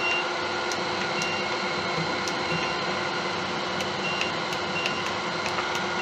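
Laguna wood lathe running steadily at pen-turning speed with the antler blank spinning and no tool on it yet: an even machine hum holding several fixed tones, with a few faint ticks.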